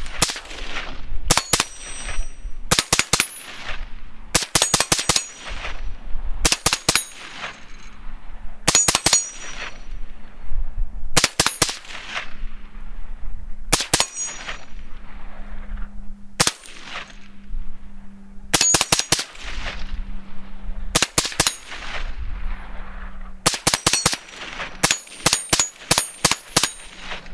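Suppressed AR-57 short-barrelled carbine in 5.7x28mm fired rapidly in short strings of one to four shots, a string every second or two, with a quicker run of shots near the end. Short metallic rings follow many of the shots.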